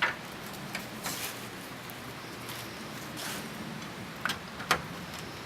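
Scattered light metallic clicks and taps of a lug wrench loosening and backing off lug nuts on a raised car wheel, with two sharper clicks near the end.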